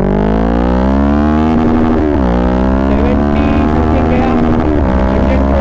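Kawasaki Ninja 650 parallel-twin with a Mivv full-system exhaust accelerating hard. The exhaust note climbs in pitch, drops sharply about two seconds in as the rider shifts up, then holds high and dips briefly again near the end.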